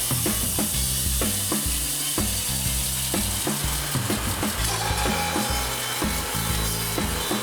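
Backing music with a steady beat and a stepping bass line, with the noise of a band sawmill cutting wood mixed underneath.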